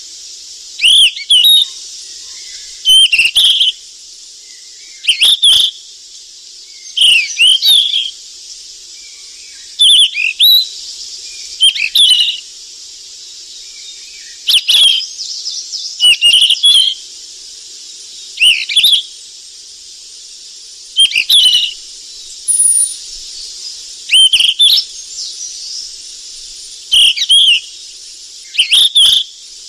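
Golden flycatcher (sikatan emas) singing: the same short chirping phrase repeated about every two seconds over a steady high hiss, as used for masteran song-tutoring of caged birds.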